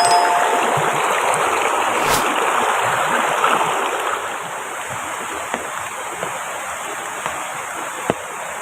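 Steady rushing of river water, easing slightly about halfway through. There is one sharp click about two seconds in and a few light taps near the end.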